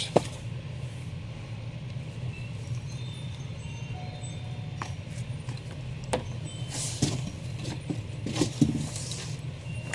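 Comic books and a cardboard shipping box being handled: a few light taps and clicks, then short paper-and-cardboard rustles in the last few seconds as the box is reached into, over a steady low hum.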